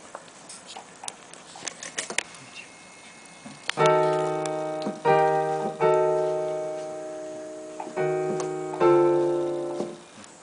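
Digital piano playing a short run of sustained chords, about six strikes starting some four seconds in, each left to ring and fade, the last dying away near the end. The chords are a trial of alternative chord choices for the ending of the melody. A few light clicks come before the playing.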